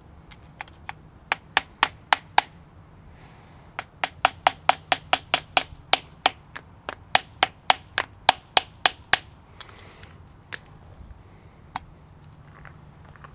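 Hammer striking a steel punch on a GY6 scooter engine: a run of about seven sharp metallic taps, a short pause, then a run of about twenty at roughly four a second, and two single taps near the end.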